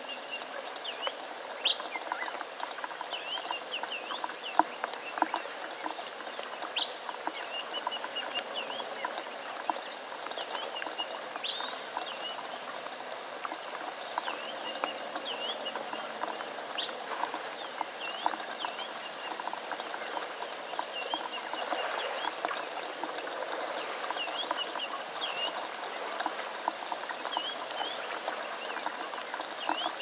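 Steady rain pattering on water and ground, with scattered sharp drip ticks and many short, high chirps repeating throughout.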